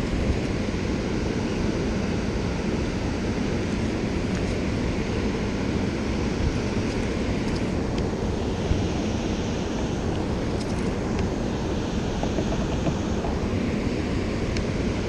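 Steady rushing roar of water pouring through a dam spillway, mixed with wind buffeting the microphone.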